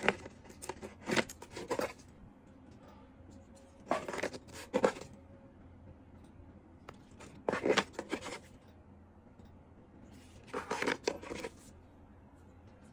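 Plastic-wrapped cardboard Zippo lighter boxes being picked up and handled, crinkling and scraping in four short bursts about three seconds apart.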